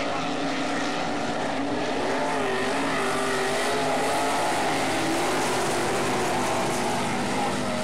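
Several winged sprint cars' engines running at racing speed. Their pitch rises and falls in waves as the cars lap, slightly louder mid-way.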